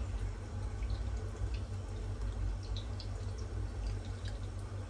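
Small meatballs frying in oil in a pan: a steady sizzle with scattered small pops and crackles, over a low steady hum.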